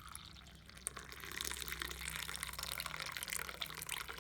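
Freshly strained hot green tea pouring from the pan into a cup in a steady stream.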